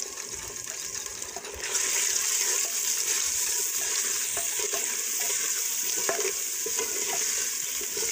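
Onion, tomato and spice masala frying in a clay pot and sizzling, while a wooden spoon stirs and scrapes through it. This is the bhuna stage of making kadhi. The sizzle gets louder about two seconds in.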